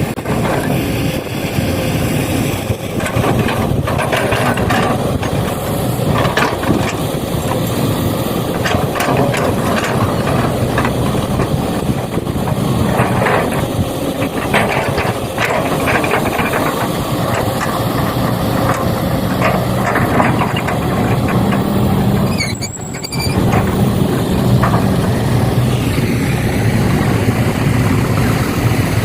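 Heavy machinery running continuously: a steady engine-like rumble with frequent knocks and clattering over it, cut briefly about three quarters of the way through.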